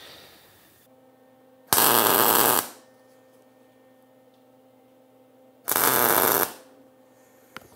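Two MIG tack welds, each a loud crackling hiss about a second long, about four seconds apart, tacking a steel spacer onto a spring plunger body. A faint steady hum runs between them.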